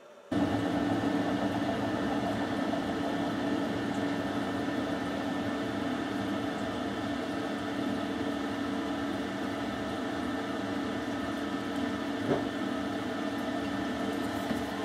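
Electric drill motor, used to drive a buffing wheel for polishing silver, running at a steady speed with an even hum. It cuts in abruptly just after the start.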